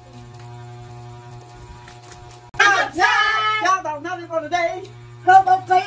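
Mostly speech. A steady low hum runs alone for about two and a half seconds, then a voice starts talking loudly and goes on in stretches to the end.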